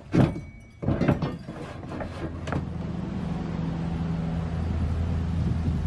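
A few sharp knocks and clatters over the first two and a half seconds, then a steady low engine drone of a running vehicle.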